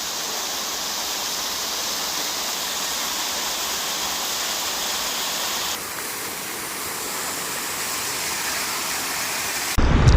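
Multi-tiered waterfall cascading: a steady rush of falling water, dipping slightly in level about six seconds in. Right at the end it cuts abruptly to loud low wind buffeting on the microphone.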